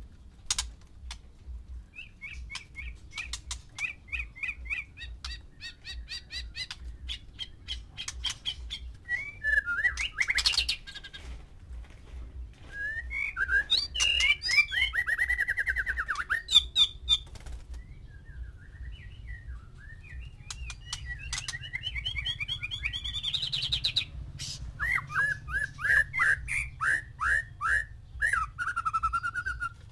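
White-rumped shamas singing and calling in several bursts: fast runs of repeated notes, sweeping whistles and rattling clicks, over a faint low hum.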